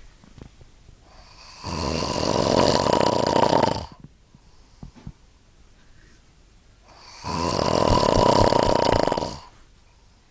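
A person snoring: two long, loud snores about two seconds each, coming roughly five and a half seconds apart.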